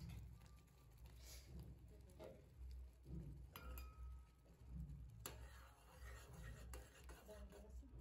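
Near silence: thick semolina halwa simmering in an aluminium kadai, with a few soft pops and clicks over a low hum.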